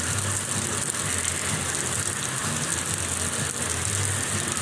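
Heavy monsoon rain pouring down steadily, with a low steady hum underneath.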